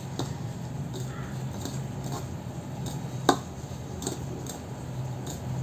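Fingers rubbing and mixing flour and sugar in a bowl: soft, faint rustling with a few light clicks and one sharper tap a little past three seconds in, over a steady low hum.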